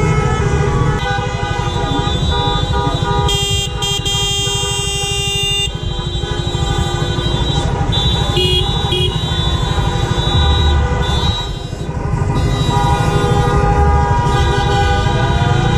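Many car horns honking at once in a celebratory convoy, steady overlapping tones throughout, over the riding motorcycle's KTM Duke 125 single-cylinder engine. A loud horn blast starts about three seconds in and lasts a couple of seconds, and two short toots follow around eight seconds in.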